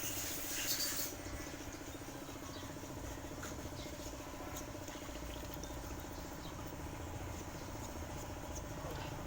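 A steady mechanical hum with a fine, even pulsing, with scattered faint clicks. A rooster's crow trails off about a second in.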